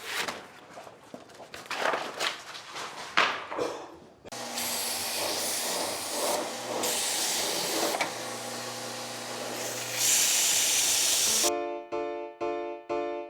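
Tools and wood being handled with a few irregular knocks, then a power sander running with a steady hiss over a low motor hum for about seven seconds, briefly easing off twice, sanding with coarse 80-grit paper. Light piano music starts near the end.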